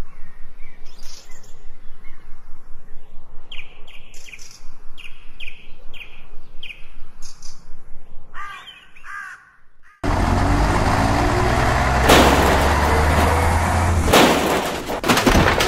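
Birds calling, short calls repeated every second or so, with one longer warbling call near nine seconds. About ten seconds in, a loud engine-like rumble with a noisy hiss over it cuts in suddenly: a dubbed heavy-truck sound effect, with two sharp crashes at about twelve and fourteen and a half seconds.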